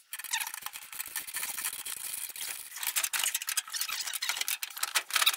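Steel rock and roll bed seat frame clicking and rattling, with a few short squeaks, as the bed is folded up into a bench seat.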